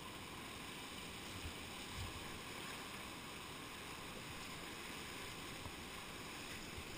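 Rushing whitewater of a river rapid, heard from a kayak in the current as a steady hiss, with a couple of faint low thumps in the first half.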